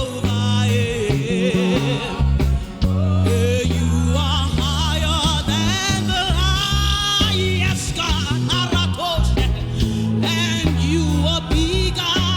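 Gospel worship song: a singer's voice over instrumental backing with a deep bass line.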